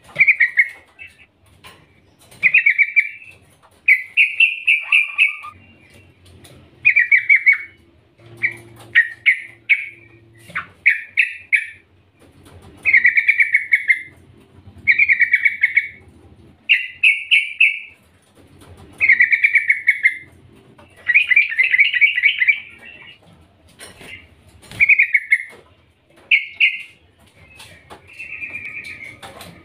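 Yellow-vented bulbul (trucukan) calling: short, rapid trilled phrases repeated every second or two, with a softer, longer phrase near the end. It is the call of a female to a male.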